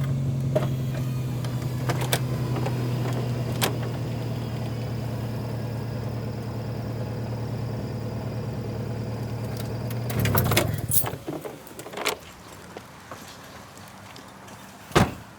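Subaru Legacy's engine idling with a steady low hum, then switched off about ten seconds in. After it, a few light clicks and one sharp click near the end.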